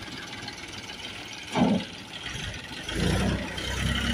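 Tractor diesel engine idling, its low hum getting louder about three seconds in, with a short louder noise about a second and a half in.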